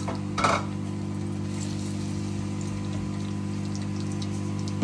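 Stovetop cooking: a steady low hum runs under faint frying in a pan, with one brief clatter of a utensil about half a second in.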